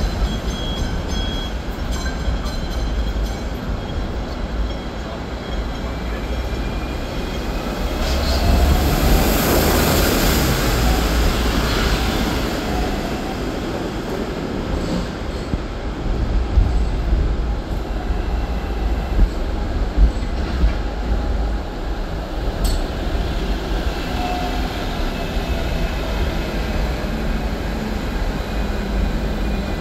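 Hong Kong double-decker electric tram running along street track, heard on board: a steady rumble and rattle of steel wheels on the rails, swelling louder for a few seconds about a third of the way in, with a few sharp knocks past the middle.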